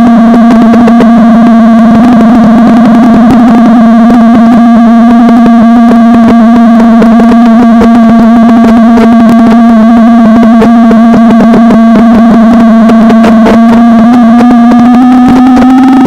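FPV quadcopter's motors, picked up by its onboard camera: a loud, steady buzzing whine with one held pitch, rising slightly near the end.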